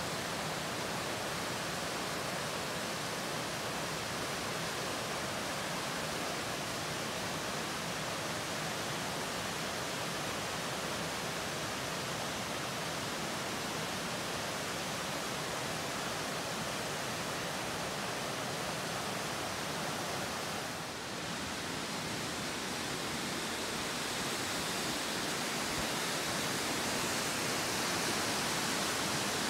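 Steady rushing of fast-flowing water, even and unbroken, dipping briefly about three-quarters of the way through.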